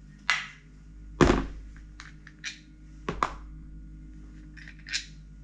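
Several knocks and clicks of metal parts, screws and hand tools being handled and set down on a wooden workbench while a trolling motor's profile clamp is taken apart. The loudest is a single thunk about a second in, and two more come in quick succession near three seconds.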